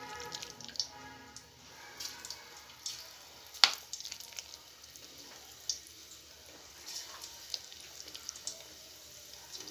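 Pakoras deep-frying in hot oil in a steel pot: a low sizzle dotted with irregular crackles and pops, the sharpest pop about three and a half seconds in.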